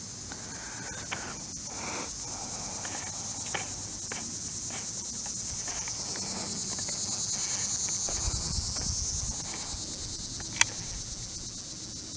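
Steady high-pitched insect chorus that swells louder in the middle and then eases back, with a single sharp click about ten and a half seconds in.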